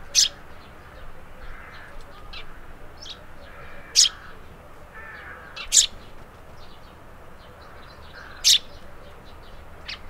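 Tree sparrow calling: four loud, short, sharp calls a couple of seconds apart, with fainter short chirps between them.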